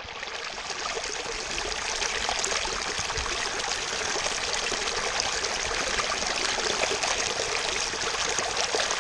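Shallow creek water rushing and splashing over rocks close to the microphone as a water bottle is held in the current to fill. A steady rush that builds a little in the first second or two.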